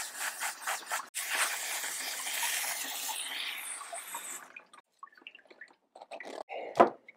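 Garden hose spray nozzle rinsing water down the inside of a mesh bubble-hash wash bag, a steady hiss that cuts off suddenly about four and a half seconds in. It is followed by faint scrapes and ticks of a metal spoon gathering the wet hash in the bag.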